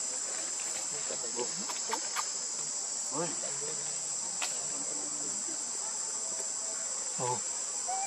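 Steady high-pitched drone of insects, with a few faint, short wavering calls in the background about three and seven seconds in.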